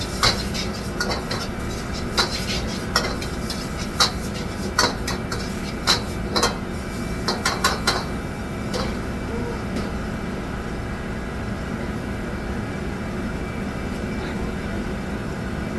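Metal utensils clinking against pots, pans and dishes in a kitchen: a dozen or so sharp, irregular strikes over the first eight seconds, then only a steady background hum.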